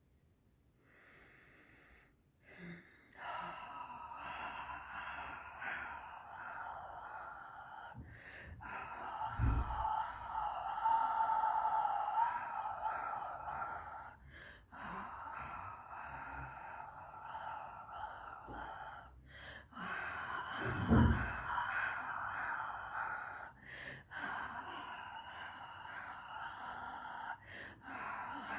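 A person breathing loudly in long, drawn-out breaths, one after another with short pauses between them. About nine seconds in and again past twenty seconds there is a brief low thump.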